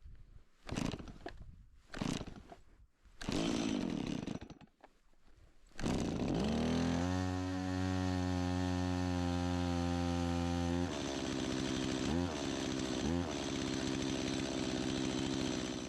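Two-stroke chainsaw being pull-started in the cold: a few short sputters on the starter cord, then it catches about six seconds in and runs at a steady fast idle. It drops to a rougher idle, is revved briefly twice, and is shut off near the end. The owner thinks the saw had stopped working because of ice inside it that has just thawed.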